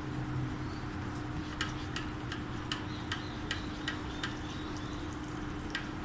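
A run of about eight light, sharp clicks, evenly spaced at two or three a second, stopping and then one more near the end, over a steady low hum.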